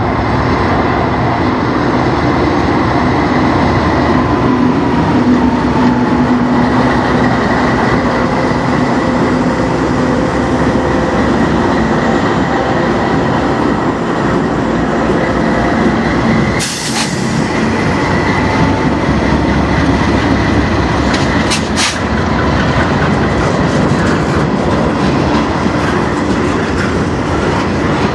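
Diesel freight locomotives passing close by with a steady rumble, then the train's freight cars rolling past, steel wheels on rail with a faint high steady tone. Sharp knocks come about two-thirds of the way through and again a few seconds later.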